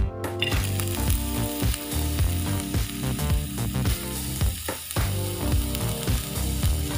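Chopped onions sizzling in hot oil in a kadhai, the frying hiss starting about half a second in. Background music with a steady beat plays under it.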